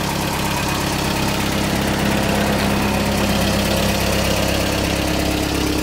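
Toyota pickup engine running at a steady idle.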